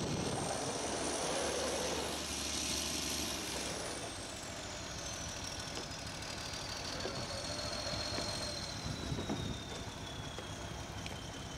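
Truck engine idling steadily. A thin high whine runs over it, rising a little at first, then falling slowly in pitch over several seconds.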